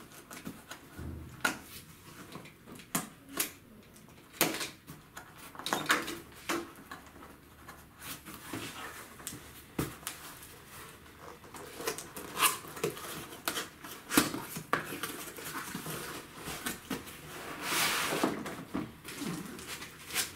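A cardboard laptop box being opened and handled: scattered sharp knocks, taps and scrapes of cardboard, then a longer stretch of rustling packaging near the end.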